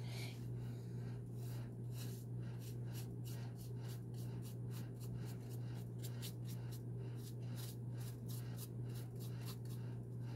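Paintbrush strokes on a mask: quick, soft scratchy swishes a few times a second, over a steady low hum.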